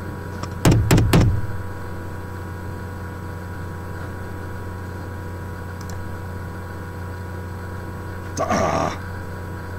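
Steady hum made of several fixed tones. About a second in, a quick cluster of three or four sharp knocks breaks it, and a short noisy rustle follows near the end.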